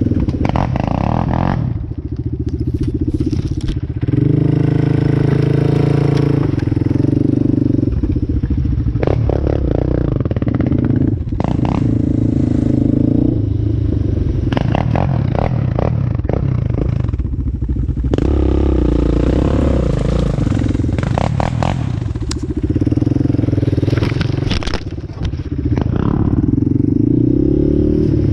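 A Yamaha ATV's single-cylinder four-stroke engine running as it rides a rough trail, its pitch rising and falling with the throttle. Several bursts of clattering and scraping knock through it.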